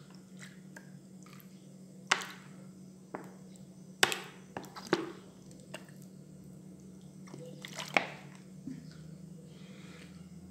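Vinegar poured from a plastic bottle into open glass jars of vegetables to top up the brine, with four sharp clinks of glass or bottle on the jars.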